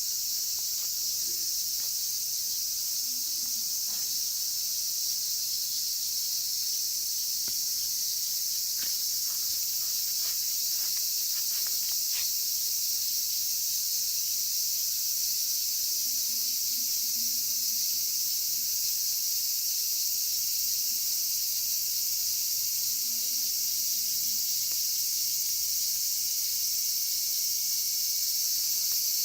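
Loud chorus of cicadas, a continuous high-pitched buzz that holds steady throughout.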